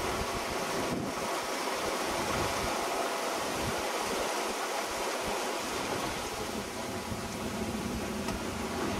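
Steady rush of wind and breaking sea around a sailing yacht under way in rough water, with wind buffeting the microphone.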